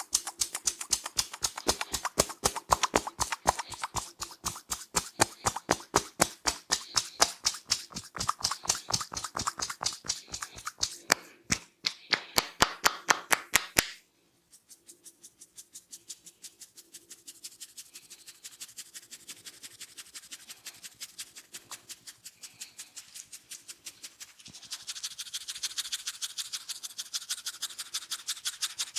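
A barber's hands tapping rapidly on a client's head during a head massage, about six or seven quick slaps a second, stopping abruptly about halfway through. Then comes soft rhythmic rubbing of the scalp and hair, turning into louder scratching near the end.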